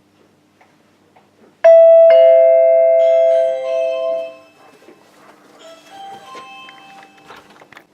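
A two-note ding-dong door chime sounds about one and a half seconds in: a higher note, then a lower one half a second later. Both ring on together and fade out over about two seconds.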